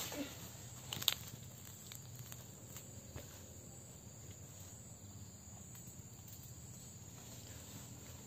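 Faint rustling of leaves and twigs as a squirrel's nest of dry grass is pulled out of a tree, with a sharp click about a second in.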